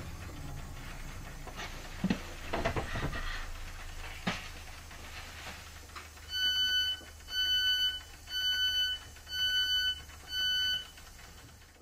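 Door warning alarm of a Class 465/9 Networker train sounding five evenly spaced electronic beeps, each about half a second long and a bright chord of several pure tones, the warning that the doors are closing before departure. Before the beeps, a few knocks and a clatter over the train's low standing hum.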